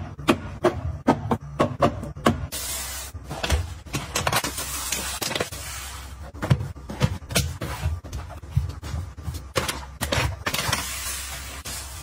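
Quick, evenly spaced clicks, about four a second, then, from about two and a half seconds in, a brown kraft paper bag crinkling and rustling as it is handled, with irregular bursts of crackle.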